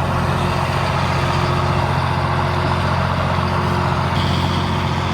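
Heavy vehicle engine running steadily, a low even hum.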